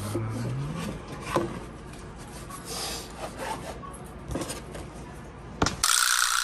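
Stiff card autograph boards (shikishi) being handled and slid against one another and the table, with scraping and light taps. Near the end a sudden loud noisy burst cuts in.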